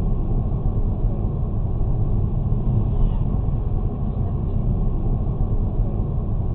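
Steady low rumble of a car's engine and tyres on the road, heard from inside the cabin through a dashcam's microphone.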